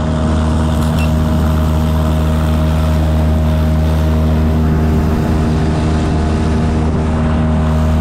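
Motor of a fishing kayak running at a steady speed, a constant even hum with the rush of water and wind under it.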